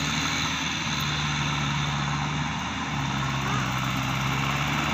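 Kubota tractor's diesel engine running steadily as it works a muddy rice paddy, its pitch dipping slightly about three seconds in.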